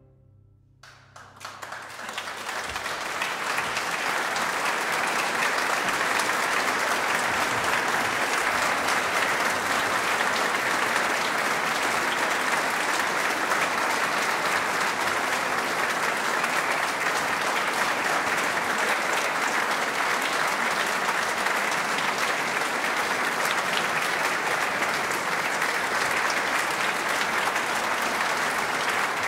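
Audience applauding, starting about a second in after a brief silence, swelling over the next few seconds and then holding steady.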